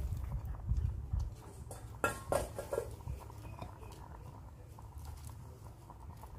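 Sliced onions dropping onto raw meat in a large aluminium pot: soft thuds and pattering in the first second or so. A short voice-like sound comes about two seconds in.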